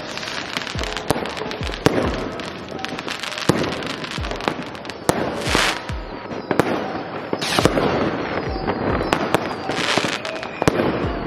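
New Year's fireworks and firecrackers going off all around in a continuous barrage: irregular sharp bangs and deep booms over a steady crackle, with three longer hissing bursts about halfway through and near the end.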